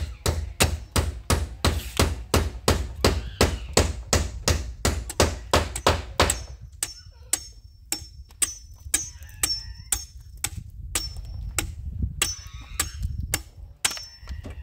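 A hand tool striking wood over and over, quick blows about three a second, then slowing after about six seconds to scattered single strikes, some with a brief high ring.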